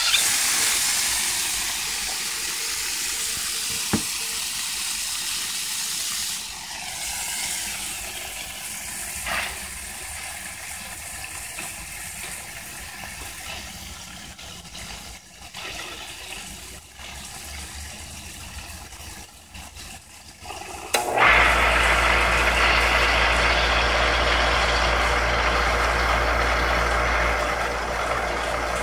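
Pacific Hydrostar 1 HP electric well water pump running with water rushing through its PVC plumbing. About two-thirds of the way through, the motor's steady hum and whir suddenly become much louder.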